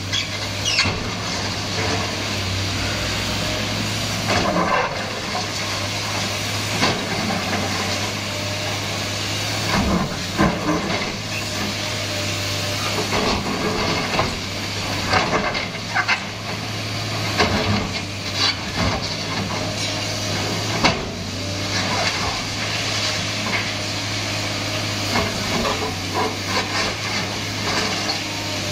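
Sany SY215C hydraulic excavator running steadily at working revs, with repeated irregular knocks and crunches of concrete and brick rubble as the bucket breaks into the building.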